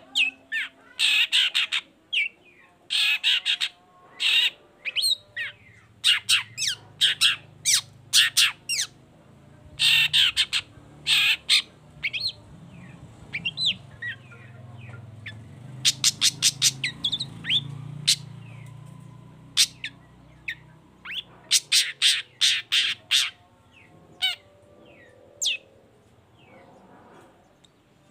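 Long-tailed shrike (cendet) singing in full voice: runs of harsh, rasping squawks in quick series, with rapid clipped notes and a softer stretch of thin rising and falling whistles in the middle.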